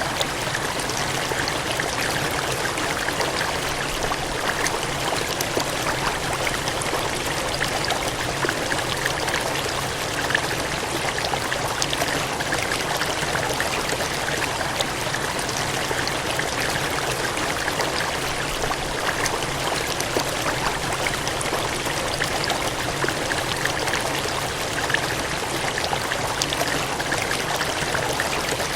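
Water gushing and splashing in a steady cascade, a dense even rush with small splashes scattered through it.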